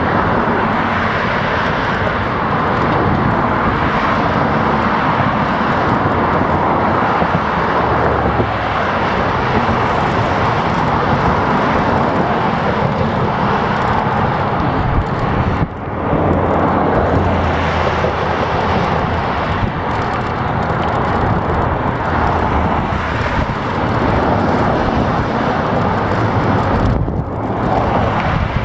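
Steady loud rush of wind over the microphone of a camera mounted on a moving bicycle, mixed with road noise and passing traffic, briefly dropping away twice.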